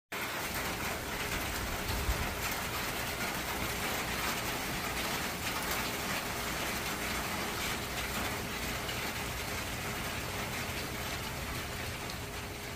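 Light rain shower falling on a concrete driveway: a steady hiss of many small drops.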